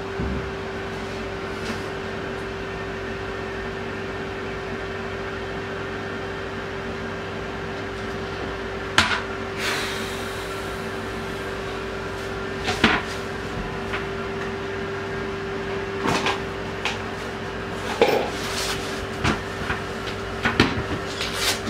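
Plastic toilet seat lid being handled: sharp knocks and taps, first about halfway through, then a run of several quicker ones near the end, over a steady hum with one constant tone.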